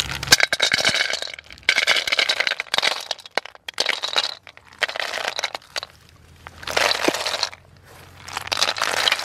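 Freshwater snail shells clattering and scraping against a metal basin in about six bursts of dense rattling.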